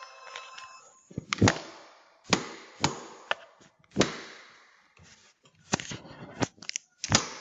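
A series of sharp, irregular bangs, about ten over several seconds, each with a short ringing tail, heard through a doorbell camera's microphone.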